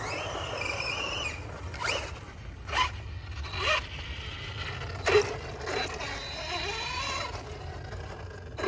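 Electric motor and drivetrain of a 6S Losi 8ight-X Super Lasernut 1/6-scale RC buggy whining as it drives. A steady high whine for about the first second gives way to several short, loud throttle bursts whose pitch sweeps up and down.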